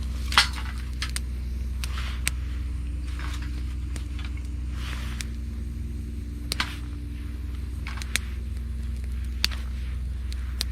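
Wood campfire of gathered branches and driftwood burning, with sharp pops and cracks every second or two, the loudest less than half a second in, over a steady low hum.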